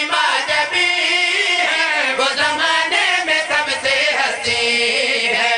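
Men's voices singing a Urdu devotional qasida refrain in a melodic chant, loud and unbroken.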